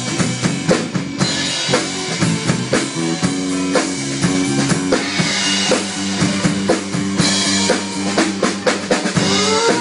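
Live band playing an instrumental passage: a drum kit with bass drum and snare keeping a steady beat under low bass notes and guitar.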